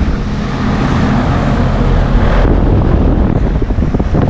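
Rheem Classic 14 heat pump outdoor unit running just after starting: a steady hum from the compressor with the condenser fan moving air, slightly rattly.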